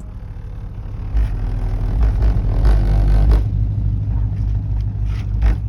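Aftermarket 12-inch subwoofer in a car trunk playing music with heavy bass, which jumps up about a second in and pulses on.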